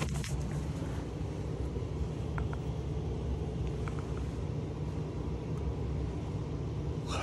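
Hotel-room air conditioner running with a steady low rumble that is really making noise.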